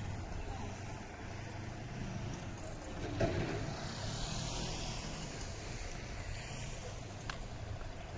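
City street ambience: a steady low hum of traffic, with a vehicle passing about three to five seconds in and a short click near the end.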